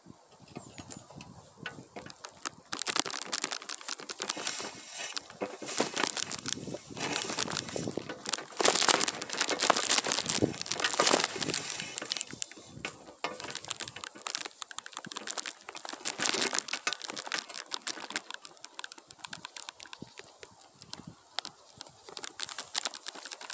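Dense, irregular dry rustling and crackling of Korean pine branches and needles brushing and scraping, loudest from about 3 to 17 seconds in, then quieter.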